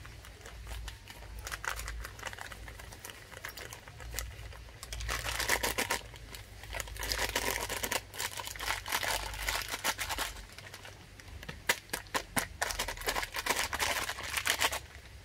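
Knife being sharpened: bursts of quick scraping strokes, several a second, with short pauses between the bursts.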